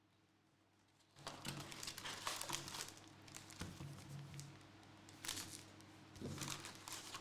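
Plastic trading-card packaging crinkling and tearing as it is handled and opened, in irregular bursts with sharp crackles, starting about a second in.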